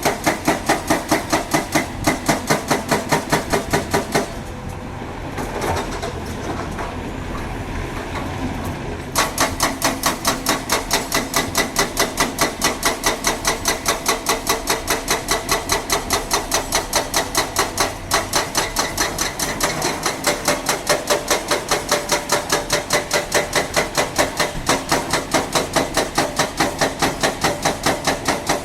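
Excavator-mounted hydraulic breaker hammering, a fast even run of heavy blows at about four to five a second. It stops for about five seconds, leaving a steady lower engine noise, then starts hammering again.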